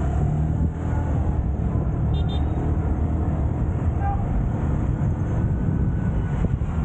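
Motor scooter riding along a road: steady engine and road noise, heaviest in the low rumble.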